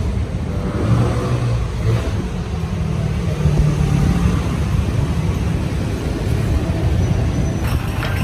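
Steady low outdoor rumble.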